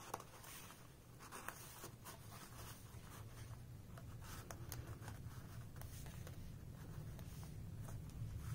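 Paper and card being handled in a handmade journal, with faint rustles and light ticks as items are pulled from and tucked into its paper pockets.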